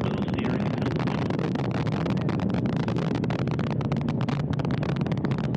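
Antares 230 rocket's first stage (two RD-181 engines) climbing after liftoff: a steady, crackling rumble heard from the ground.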